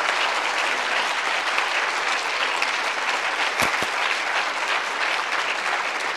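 A large auditorium audience applauding steadily at the close of a speech, with a single knock about two-thirds of the way through.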